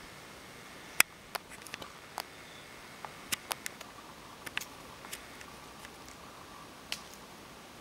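About a dozen light, sharp clicks and taps at irregular intervals over a faint steady hiss, the loudest about a second in and several bunched together around the middle.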